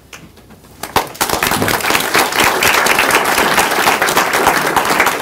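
Small audience applauding, many people clapping at once, starting about a second in.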